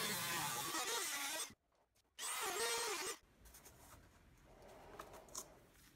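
Dremel rotary tool with a cutting disc cutting through 2-inch PVC pipe, running in two short stretches. Its motor pitch wavers and dips as the disc bites into the plastic. A few faint clicks of plastic being handled follow near the end.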